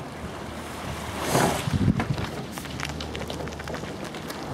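Wind buffeting the microphone: a steady rush with two loud gusts close together about a second and a half in.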